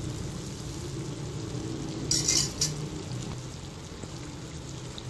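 Dal fritters deep-frying in hot oil, a steady sizzle, with a brief louder burst of sizzling and utensil scraping a little past two seconds in as a spoon works among them. The fritters are fully fried and ready to come out.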